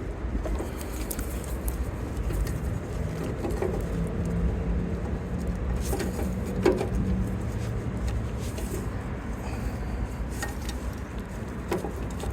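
Scattered light clicks and scrapes of hands working a stuck, grime-caked tail-light wiring connector, over a steady low hum.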